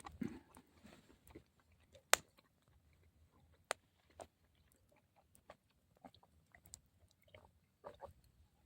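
Someone eating: faint chewing, with scattered sharp clicks and ticks, the loudest about two seconds in.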